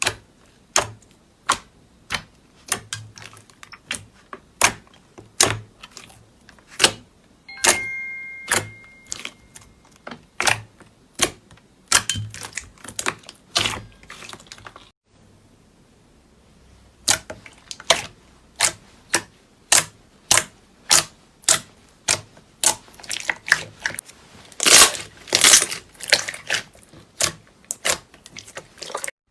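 Slime being pressed and squeezed, making a string of sharp pops and clicks, about one or two a second, with a short break about halfway and a faster run near the end.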